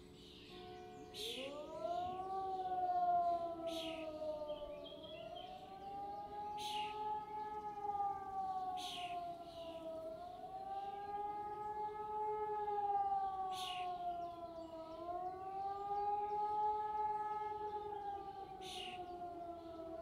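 Several civil-defence sirens sound together in the German public-warning signal, a wail that rises and falls about every five seconds. About a second in, one siren spins up from a low pitch into the wail, as the nearby E57 motor siren does, and more distant electronic ECI sirens wail alongside it.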